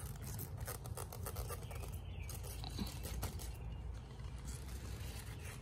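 Bok choy plants being handled by hand: scattered rustling, light crackling and scraping of leaves, stems and soil, over a low steady rumble.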